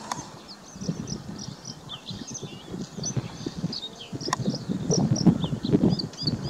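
Many small birds chirping in quick, short high notes, several a second, with an irregular low rumble underneath and one sharp click a little past the middle.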